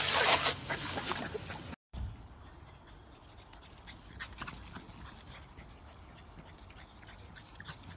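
Excited Siberian husky vocalising, noisy and breathy, for the first couple of seconds. After a sudden cut, only faint outdoor background remains, with a few light ticks.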